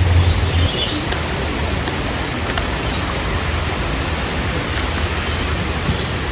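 Steady rush of water from a waterfall and stream.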